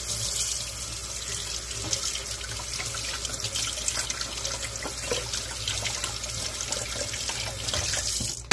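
Kitchen faucet running steadily into the sink as a knife is washed under it. The water cuts off sharply near the end, followed by a brief knock.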